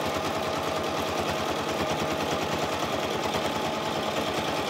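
Red Toyota domestic sewing machine running steadily at speed, its needle stitching through fabric in a rapid, even rhythm.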